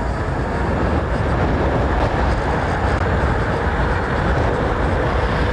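Steady, loud rush of wind and road noise while riding a 72-volt e-bike along a highway, heavy and low.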